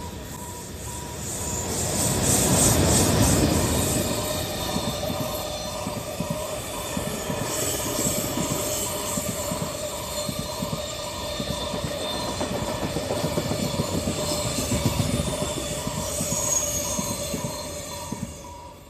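A train passing close by, its wheels rumbling and squealing, loudest about two to four seconds in and fading near the end. Under it, a JR Central trackside train-approach alarm keeps beeping a pulsed tone about twice a second: the down-line warning that tells track maintenance workers a train is coming.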